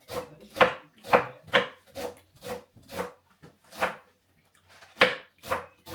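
Knife chopping fresh spinach, each cut knocking on the board, about two cuts a second with a short pause about four seconds in.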